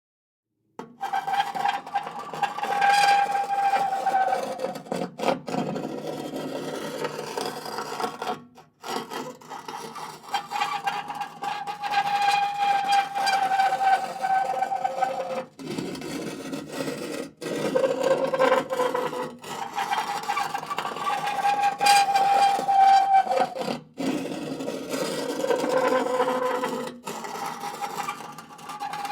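Rusty metal scraped with another metal object in long grinding strokes, each carrying a held, slightly wavering squeal. The strokes stop briefly several times and start again.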